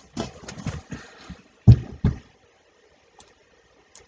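Knocks and clicks from a computer mouse being handled and clicked on a desk: a quick cluster of small knocks, two louder thumps about two seconds in, then two faint clicks near the end.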